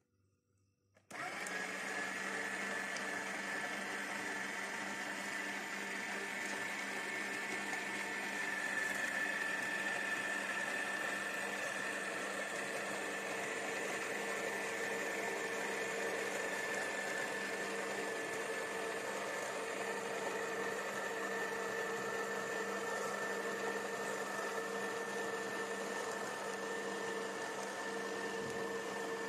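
Electric meat grinder switched on about a second in and running steadily while mincing meat: an even motor hum with a steady high whine.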